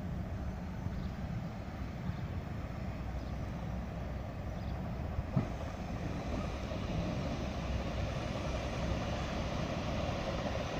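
First-generation diesel multiple unit arriving at the platform: a steady low diesel rumble with wheel noise, growing slightly louder as it draws near, and a single sharp click about five seconds in.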